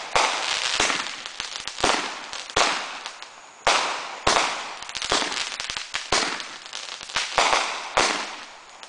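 Fireworks going off shot after shot, about a dozen sharp bangs at roughly one every 0.7 seconds, each trailed by a fading hiss.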